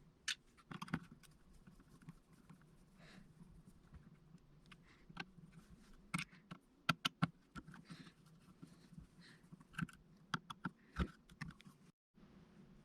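Faint, scattered clicks and light taps of small tools and plastic parts being handled during the disassembly of a DJI Mavic Air 2 drone's camera mount, busiest around the middle and again toward the end.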